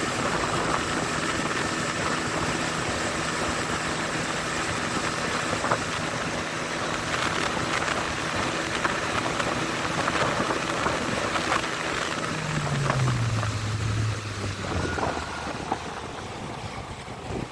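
Outboard motor pushing an inflatable boat along at a steady note over a hiss of water. About twelve seconds in, the engine note drops as the motor is throttled back, and the sound grows a little quieter.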